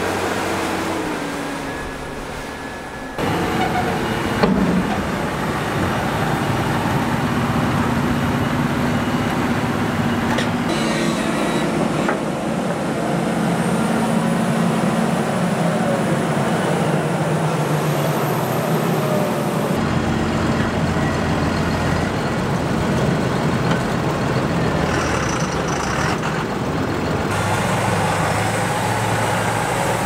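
Claas tractors' diesel engines running under load as they push chopped maize over a silage clamp. The engine sound steps abruptly a few times, about 3, 20 and 27 seconds in.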